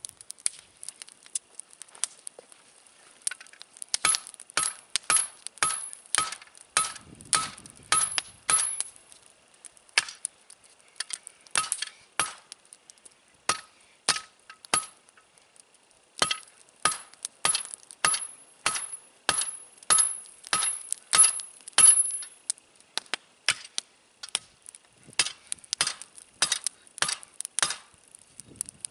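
Hand hammer forging hot steel: a run of ringing metal-on-metal blows, about two a second, starting a few seconds in and coming in several bursts with short pauses.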